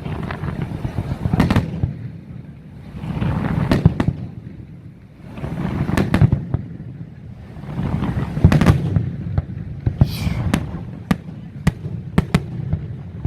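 Aerial fireworks display: shells bursting in sharp bangs every second or two over rolling, swelling rumbles, with a brief whistle about ten seconds in.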